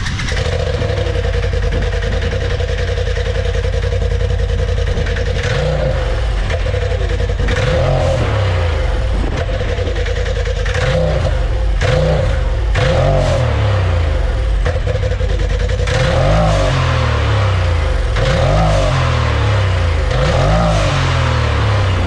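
Polaris turbo side-by-side's ProStar engine starting up through an EVO aftermarket exhaust, idling with a steady whine, then blipped through about seven or eight quick revs that rise and fall back to idle. It is not crazy loud.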